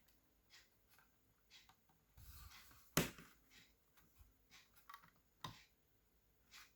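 Small clicks and taps of hands and tools working on an opened laptop's plastic and metal parts, with a short scrape and then one sharp, loud click about three seconds in.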